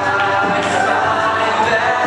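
Live church worship music: a man singing into a microphone over keyboard accompaniment, running steadily without a break.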